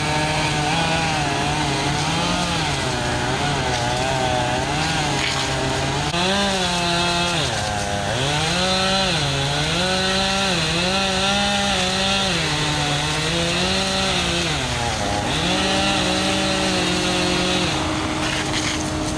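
Chainsaw cutting pine, its engine pitch rising and falling over and over with the throttle, highest between about six and fifteen seconds in. A steady engine hum runs underneath.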